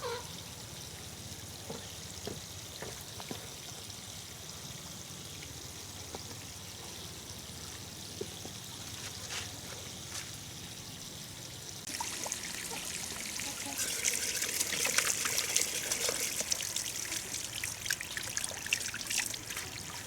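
Water trickling and splashing. It comes in about twelve seconds in, after a quiet low hum, and grows louder shortly after.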